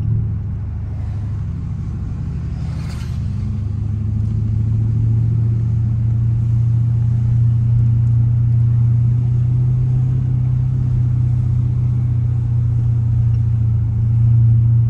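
Straight-piped 2021 Dodge Durango R/T's 5.7-litre HEMI V8 exhaust droning steadily while cruising, heard from inside the cabin. The drone eases about a second in, builds back up a few seconds later, and swells again near the end.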